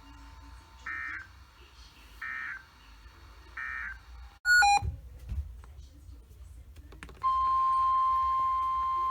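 Three short bursts of EAS/SAME digital data tones, about 1.3 seconds apart: the end-of-message code closing the weather radio alert. A loud click comes a little past halfway, and about seven seconds in the steady 1050 Hz NOAA Weather Radio warning alarm tone starts and holds.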